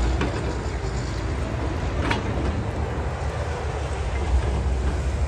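Steady low rumble of a heavy vehicle running, with a faint click about two seconds in.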